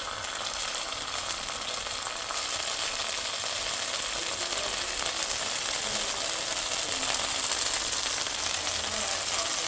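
Food sizzling as it fries in a hot pan, a steady hiss that swells louder over the first couple of seconds.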